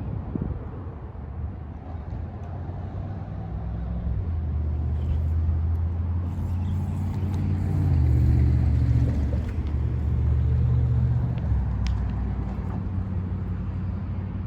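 An engine running steadily with a low hum, growing louder toward the middle and easing off near the end.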